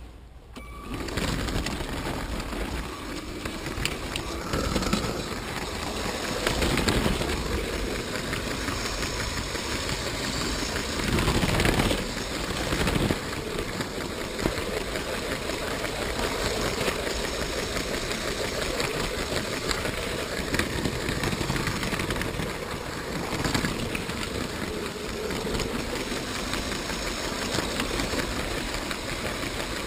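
LEGO train running along plastic track: a steady motor whir with the wheels rattling and clicking over the rails, starting about a second in. A louder clatter comes about twelve seconds in.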